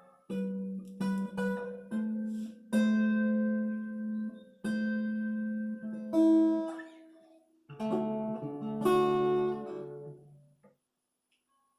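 Epiphone Lil Tex travel acoustic-electric guitar being played: a slow series of chords and notes, each struck and left to ring out, stopping about a second before the end.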